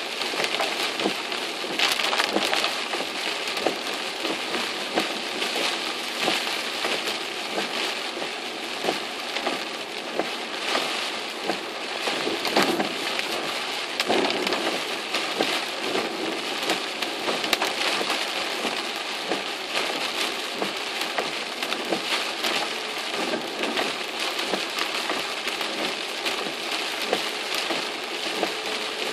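Heavy typhoon rain beating on a car's windshield and roof, heard from inside the cabin: a dense, unbroken patter of drops.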